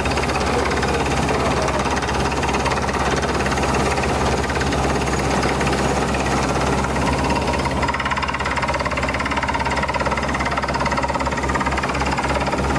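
Beretta T44 borehole drilling rig running steadily while drilling, its engine droning with a fast, even knocking rattle throughout. A faint steady whine comes in about halfway.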